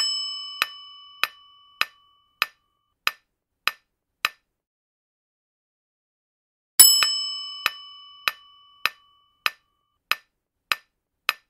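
Quiz countdown-timer sound effect: a bright chime rings out and fades, followed by a run of sharp, regular ticks a little over half a second apart. After about two seconds of silence, the chime and the ticking start again.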